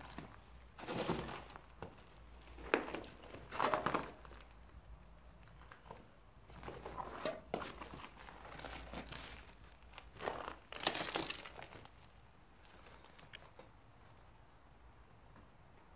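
Footsteps crunching and scraping over brick rubble and debris on the floor, in uneven bursts that die away about three quarters of the way through.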